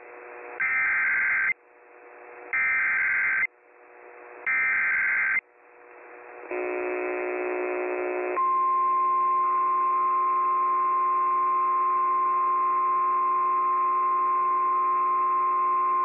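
Emergency Alert System activation on a radio broadcast: three short bursts of screechy warbling SAME header data, each about a second long and about a second apart. About six seconds in, the steady EAS attention tone starts. It heralds a National Weather Service severe thunderstorm warning.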